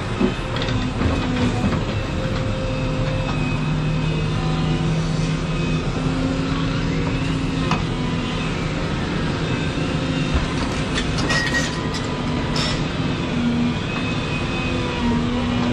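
Volvo 235EL excavator running steadily under work, its engine and hydraulics giving a drone with tones that step up and down in pitch as the boom and tiltrotator are moved. A few sharp clicks come about eleven to thirteen seconds in.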